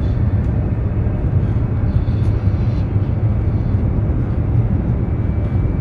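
Steady low rumble of a high-speed train running at speed, heard from inside the passenger cabin.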